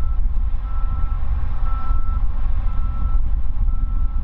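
Low, steady rumble of a distant Boeing 787-9 jet airliner on final approach. A high-pitched beep repeats about once a second over it.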